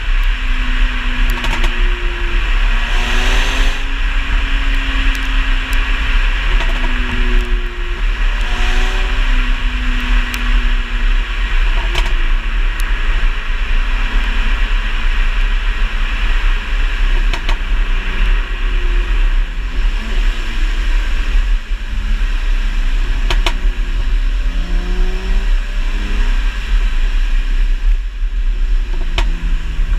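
Mercedes-Benz C350 V6 engine and exhaust under way, the engine note rising and falling as the revs change and dropping away near the end, over a steady road rumble. A few isolated sharp pops come through, the delayed overrun crackles of a Kleemann ECU tune.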